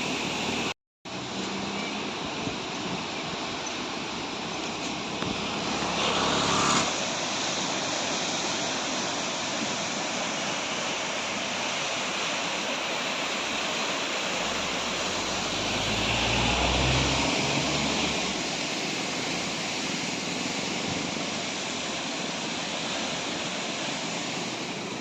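Pamba River's water rushing in a steady, even roar, with a low rumble swelling about 15 to 18 seconds in. The sound cuts out for a moment about a second in.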